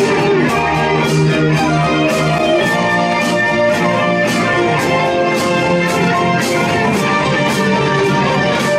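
Live rock band playing an instrumental passage with no singing: electric guitar over bass and drums, with a steady cymbal beat.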